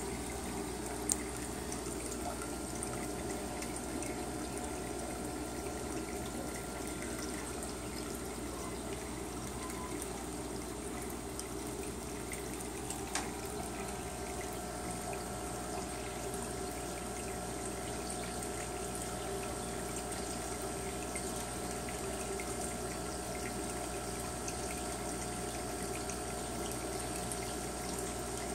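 Steady trickling water from an aquarium's filtration, with a faint steady hum beneath it. A light click sounds about a second in and another near the middle.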